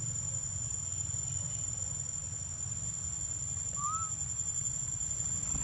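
A steady, high-pitched insect trill over a low rumble, with a single short bird chirp about four seconds in.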